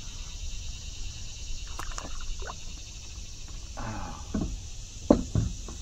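Steady high-pitched insect chorus, with a few short knocks and handling sounds as a hooked bream is reeled in and swung up to a kayak. The loudest knock comes about five seconds in.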